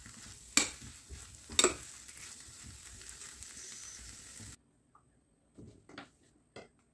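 A metal spoon stirring a thick filling in a stainless steel pan over the heat, with a steady sizzle and two sharp clinks of spoon on pan about a second apart. A little past halfway the sound cuts off abruptly, leaving only a few faint clicks.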